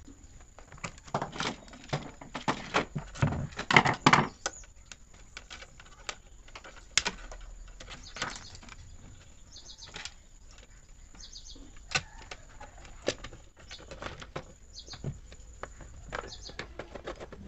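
Handling of a disassembled mixer grinder: irregular clicks, knocks and rattles of its plastic housing, base and wires, loudest in a dense cluster during the first few seconds, then scattered knocks.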